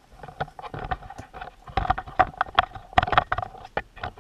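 Handling noise from a GoPro camera on its tripod being moved and set down: a quick, irregular run of knocks and clicks, busier from about two seconds in, over a steady tone.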